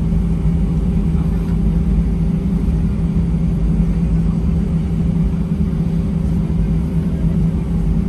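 Steady cabin hum inside an Airbus A320-200 on the ground, a constant low drone with a steady tone in it, from the aircraft's engines or air systems.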